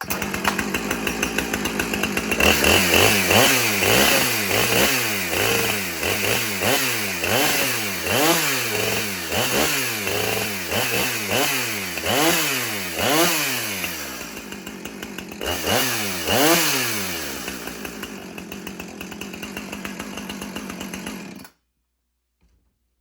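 Two-stroke chainsaw running and being revved up and down over and over, about once a second, then settling to a steadier run before cutting off suddenly.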